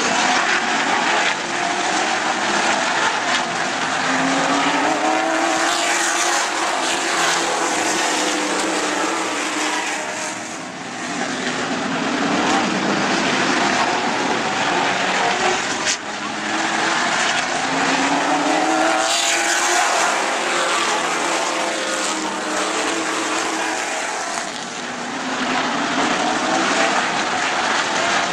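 A pack of sportsman stock cars racing around an oval track, their engines rising and falling in pitch as they pass, with brief lulls about ten and twenty-four seconds in as the pack moves away.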